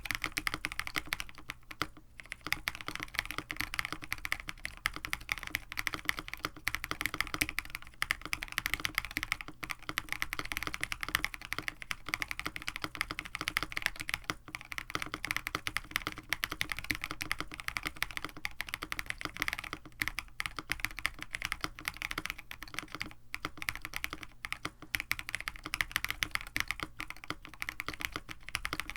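Continuous fast typing on a KBD67 Lite R1 mechanical keyboard with an FR4 plate, Penyu linear switches lubed with Krytox 205g0 and GMK-style keycaps, a steady stream of keystroke clacks with brief pauses.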